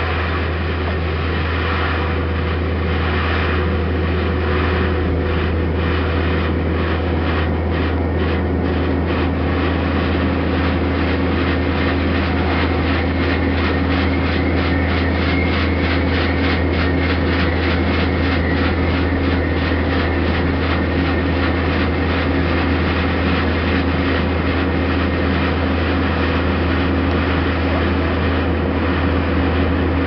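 Heavy machinery engine running steadily, with a low hum and a fast even pulsing; a steady higher tone joins in about four seconds in.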